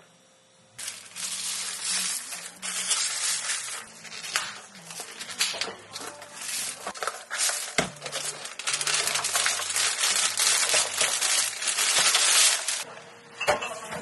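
Thin plastic takeout bags crinkling and rustling as lidded iced-drink cups are packed into them. The crinkling starts about a second in and stops near the end, where there is a short knock.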